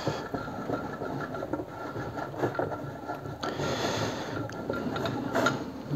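Handle of a compound cross-slide vise being cranked, its leadscrew and slide giving faint, uneven mechanical scraping and rattling, with a hiss from about three and a half seconds in.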